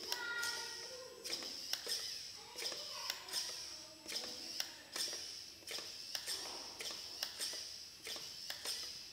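Irregular light clicks and taps, a few a second, with faint voices in the background.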